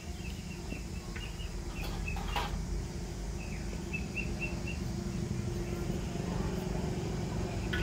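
A bird chirping a quick run of short high notes about four seconds in, over a steady low rumble and faint hum, with a couple of sharp clicks around two seconds.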